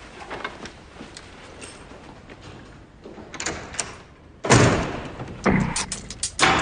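A door shutting with a sudden, heavy thud about four and a half seconds in, followed by a couple of lighter knocks.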